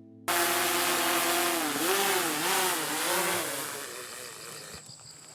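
An engine running, its pitch rising and falling several times, starting suddenly and fading out toward the end.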